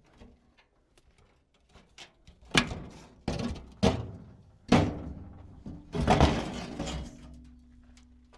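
Loud metal bangs, about five sharp knocks over a few seconds, as the steel front bumper of a 1963 Ford F100 is knocked loose. The last blows leave the metal ringing with a steady hum that slowly fades.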